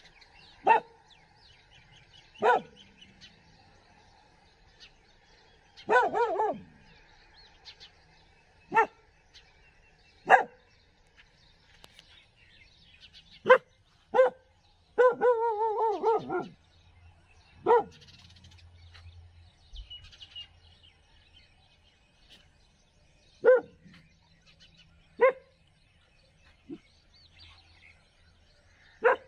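A street dog barking in single, sharp barks spaced a few seconds apart, with a short run of quicker barks about halfway through. Birds chirp faintly in the background.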